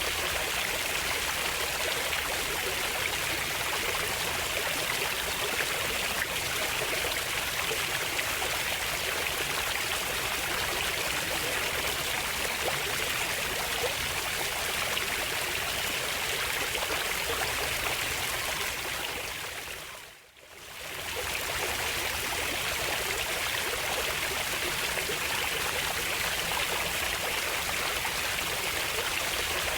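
Running water of a stream, a steady rushing and trickling. About twenty seconds in it fades briefly out and back in.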